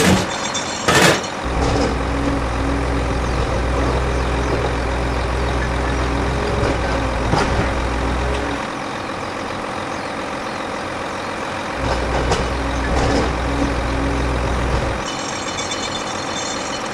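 A truck engine sound running with a deep drone in two stretches, one of about seven seconds and one of about three seconds, over a steady noisy background. There are a few sharp knocks, the loudest near the start.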